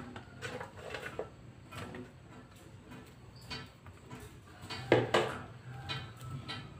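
Light clinks and knocks of kitchen utensils against a pan, with one louder knock about five seconds in.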